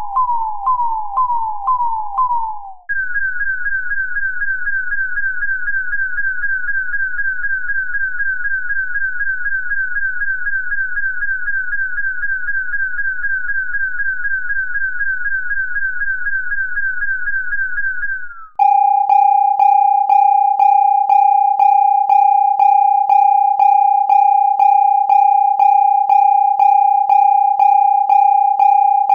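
A run of electronic alarm tones. First a tone sweeping down over and over about twice a second. About three seconds in it switches to a higher tone that sweeps down faster, and about eighteen seconds in to a lower steady tone that pulses about three times a second.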